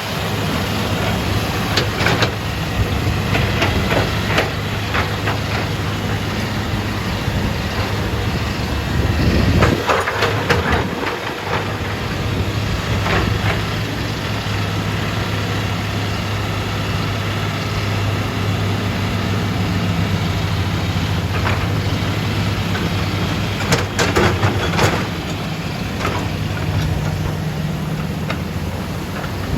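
Heavy diesel engine of a hydraulic excavator loading a dump truck, running at a steady pitch, with scattered knocks and clatter several times.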